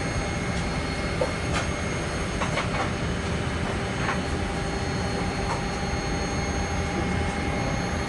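Steady rushing cabin ambience inside a Boeing 787-8 airliner: airflow noise with faint steady hum tones, and a few light clicks scattered through it.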